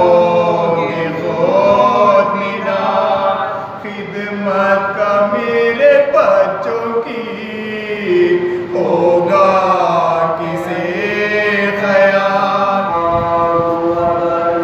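A man chanting a mourning elegy through a microphone and loudspeakers, in long melodic held notes that rise and fall, over a steady held drone note from a second voice.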